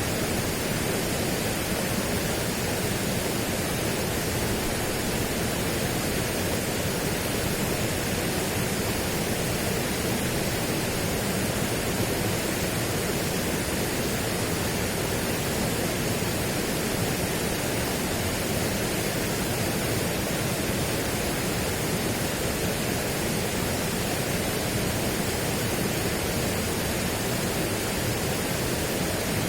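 Steady, unchanging rushing noise, spread evenly from low to high pitches, with no distinct events.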